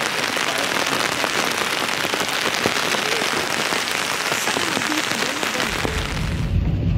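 Heavy rain falling on an open umbrella overhead: a dense, steady hiss of countless drops striking close by. Near the end it gives way to the low, steady rumble of a car driving.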